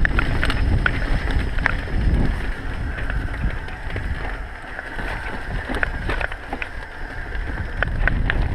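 Mountain bike riding fast down a dirt singletrack: a steady low rumble of tyres and suspension over the rough trail, with frequent sharp clicks and rattles from the bike.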